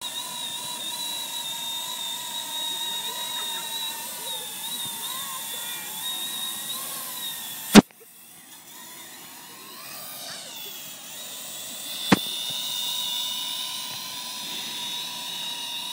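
Parrot AR.Drone 1.0 quadcopter in flight, its motors and propellers giving a steady high whine that wavers a little in pitch. A sharp click about eight seconds in cuts the whine. It then builds back over the next few seconds with its pitch gliding, and a second, smaller click comes about four seconds after the first.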